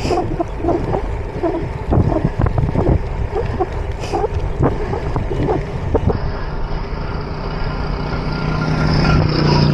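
Wind rushing over an action camera's microphone on a moving bicycle, with irregular knocks and rattles from the bike on a rough road. From about six seconds in, a steady motor-vehicle hum comes in and grows louder.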